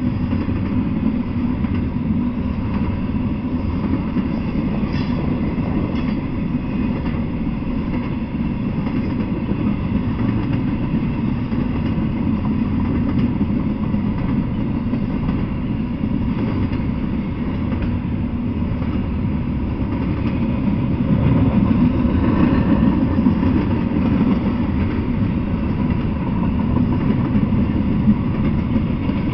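Intermodal freight train of double-stack container well cars rolling past, its wheels on the rails making a steady low rumble that grows louder about two-thirds of the way through.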